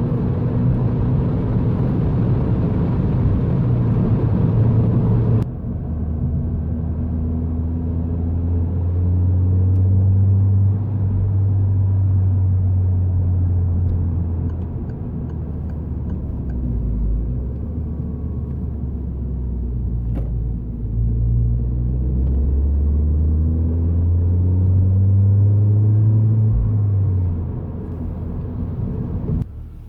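Peugeot 208 GTI's 1.6-litre turbocharged four-cylinder engine pulling, its revs climbing and falling back again and again as it accelerates and changes gear. About five seconds in the sound changes abruptly to a quieter, duller mix with the engine note clearer.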